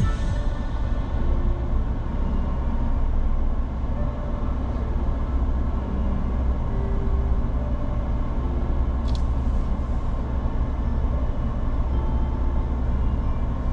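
Car being driven, a steady low rumble of engine and tyres on the road.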